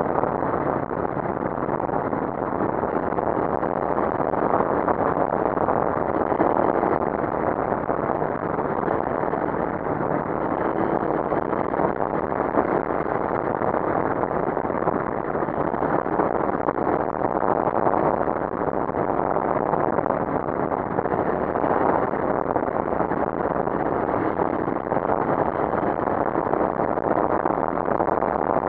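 Steady riding noise from a CFMoto NK 400 motorcycle cruising in traffic: an even rush of wind and road noise with the engine beneath it, holding level with no clear revving or gear changes.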